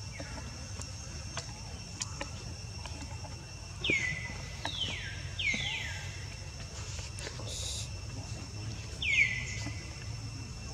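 Short high squeaking calls, each sliding quickly down in pitch: three close together about four to six seconds in, one more about nine seconds in. Under them runs a steady high insect drone.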